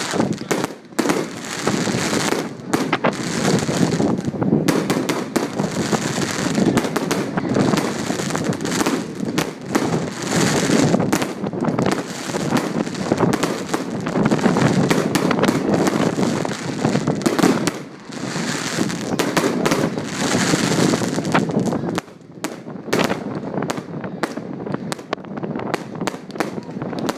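Fireworks going off in a dense, nearly continuous run of rapid bangs and crackles, thinning out and quieter after about 22 seconds.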